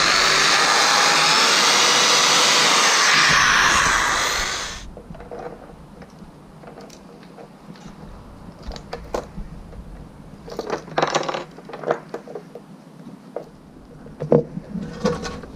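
A power tool with a small abrasive bit whirring against a boat hull, sanding back the paint around a freshly drilled hole; it stops abruptly about five seconds in. After that come quieter scattered clicks and knocks as the keel cooler fitting is handled at the hole.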